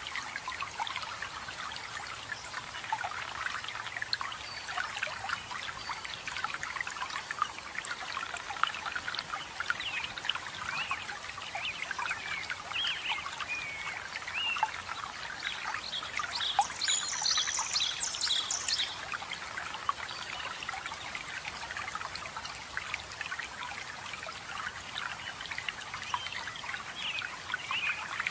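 Water steadily trickling and splashing over rocks, with small bird chirps mixed in and a quick, high-pitched bird trill about two-thirds of the way through.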